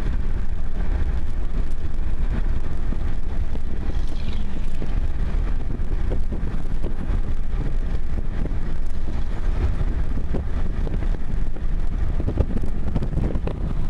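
Steady low rumble of a car driving at speed, heard from inside the cabin: road and engine noise.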